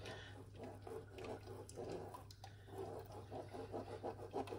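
Metal spoon stirring and pressing blended fruit pulp in a mesh strainer over a glass bowl: faint soft scraping strokes that settle into a quicker, even rhythm of about four a second, over a low steady hum.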